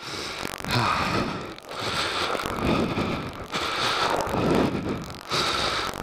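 Heavy, laboured breathing close to the microphone, about four long breaths, over crunching and scraping of stones on a rocky dirt trail.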